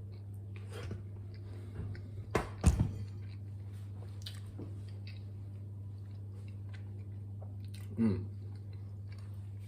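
A man biting into and chewing a sandwich of beans, chicken nuggets and potato croquettes on buttered bread: two sharp sounds about two and a half seconds in, then chewing, over a steady low hum.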